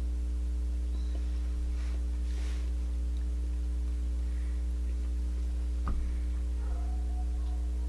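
Steady electrical mains hum, a low buzz with several fainter overtones, with one brief click about six seconds in.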